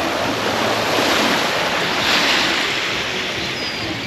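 Small sea waves washing in at the water's edge, with one wash swelling to a peak about two seconds in and then easing off, and some wind on the microphone.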